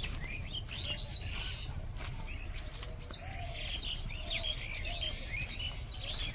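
Many small birds chirping at once: a busy chorus of short, quick rising and falling calls, the evening chatter of birds flocking back to roost at dusk. A steady low noise runs underneath.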